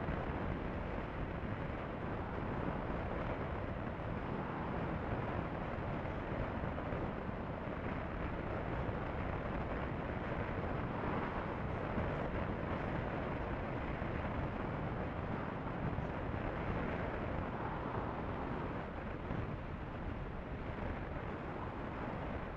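Steady rush of wind over the camera microphone and road noise from a Honda CB500F motorcycle cruising at a constant speed, with the engine buried in the noise.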